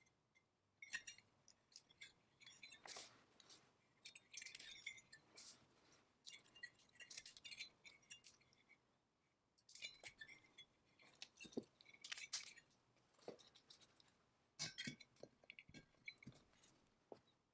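Faint, scattered metallic clinks and clicks of small bolts, a nut and a hex bit being handled and fitted against the finned cylinder of a 1954 McCulloch 99 chainsaw powerhead during reassembly.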